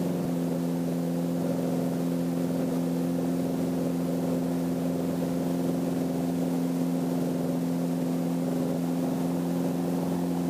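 Light aircraft's piston engine running steadily at low power while the taildragger taxis, an even drone with no change in pitch.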